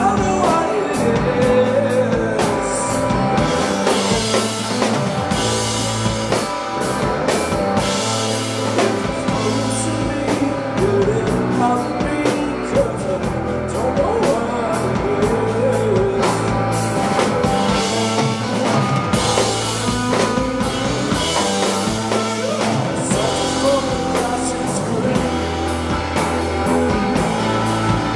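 Live rock band playing a passage without sung words: drum kit beating a steady rhythm under sustained instruments.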